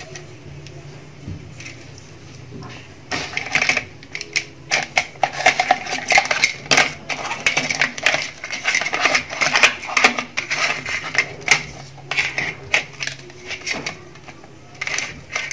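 Hands working lime wedges over raw cut crab pieces on a plastic plate: rapid, irregular clicking and clattering of crab shell and claws knocking against each other and the plate, busiest from about three seconds in.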